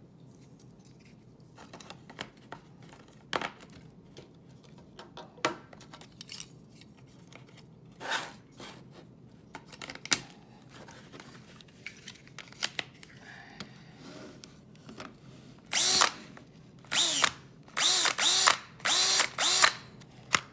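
Light plastic clicks and knocks as a DeWalt 12V Max battery pack is handled and snapped together. Near the end, a DeWalt 12V Max cordless drill runs in several short trigger bursts, each spinning up and winding down, powered by the pack with its original cells.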